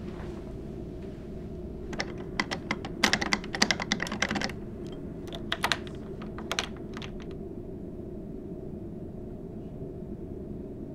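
A door lock being worked by hand: a quick run of sharp metallic clicks and rattles about two seconds in, then a few single clicks. A steady low hum runs underneath.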